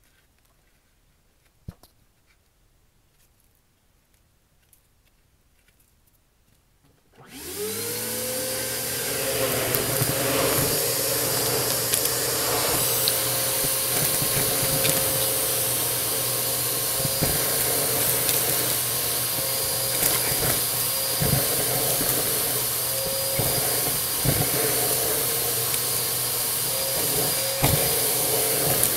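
Bissell AeroSwift vacuum cleaner switched on about seven seconds in, after near silence broken by a few faint clicks. Its motor whine rises and settles, then runs steadily with scattered sharp crunches of debris being sucked up.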